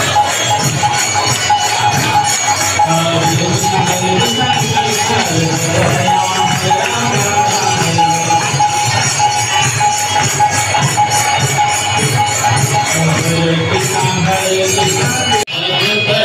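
Temple kirtan: a crowd of devotees singing a devotional chant over fast, steady jingling from hand cymbals. Near the end it breaks off for an instant.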